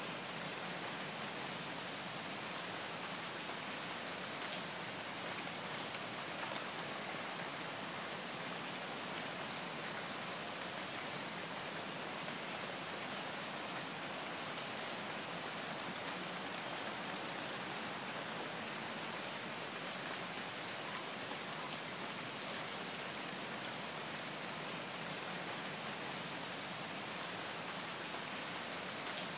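Steady, even rain-like hiss with a few faint high ticks.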